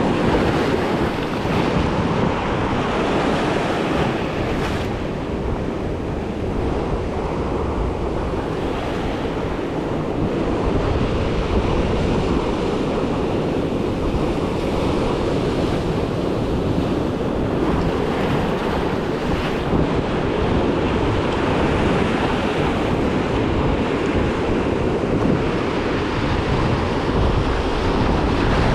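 Ocean surf washing against a rock jetty, a steady rush of water with wind buffeting the microphone.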